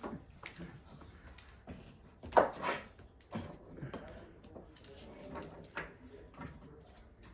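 Rhodesian Ridgeback puppies scrambling in a wooden whelping box: irregular knocks, bumps and scrapes of paws and bodies against the wooden boards, with one louder thump about two and a half seconds in.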